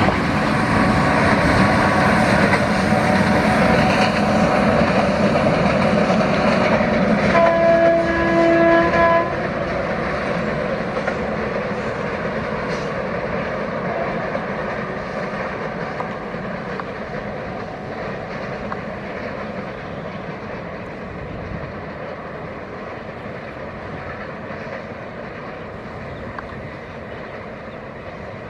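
Trains running on the line, with a steady noise of wheels on rail. A locomotive horn sounds one blast of about two seconds, roughly eight seconds in. Then the running noise drops and fades steadily as the trains move off.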